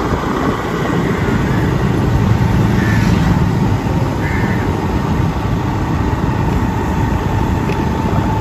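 Motorbike engine running while riding, with heavy wind rumble on the microphone. A crow caws briefly a couple of times partway through.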